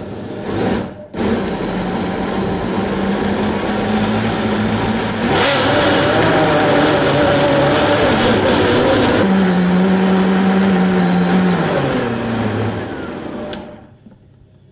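La Tomba countertop blender motor running as it blends a fruit smoothie. It cuts out briefly about a second in, then runs louder from about halfway through. Near the end it winds down and stops with a click.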